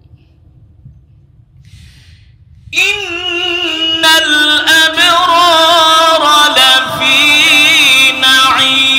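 A man reciting the Quran in a melodic tilawat style through a microphone: after a low rumble, about three seconds in he starts one long, ornamented held phrase whose pitch wavers and turns, loud and sustained to the end.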